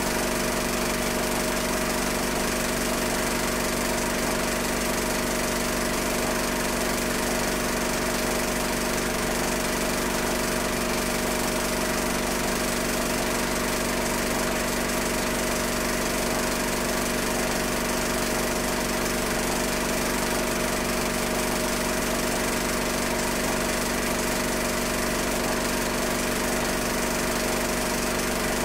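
Film projector running with a steady mechanical whirr and hum that does not change as the picture cuts between scenes.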